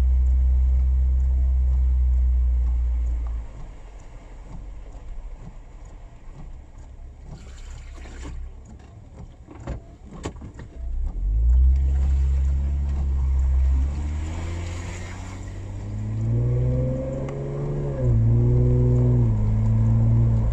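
Engine of a vehicle pushing a stalled car through floodwater, heard from inside its cabin: a heavy low rumble that drops away after a few seconds and returns about halfway through. Near the end it revs up and down repeatedly under the load.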